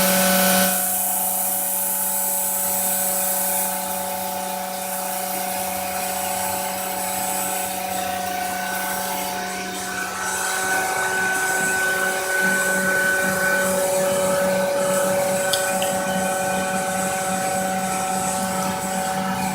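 High-speed spindle of a CNC glass-engraving machine running steadily as it cuts a pattern into a mirror, a held whine over a low hum with a hiss on top. Its pitch shifts slightly about ten seconds in.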